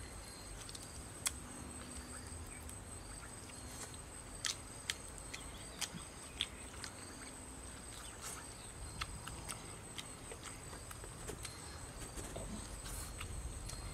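Small roasted birds being torn apart and eaten by hand, with a few sharp cracks of bones and crisp skin at irregular moments. A steady high-pitched whine runs underneath.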